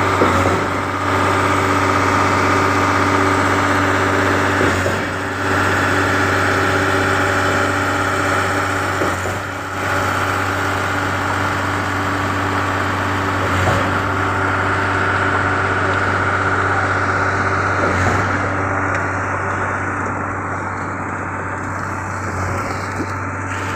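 Diesel engine of a ready-mix concrete pump running steadily under load. A brief change in the sound comes about every four and a half seconds as the pump's pistons change stroke.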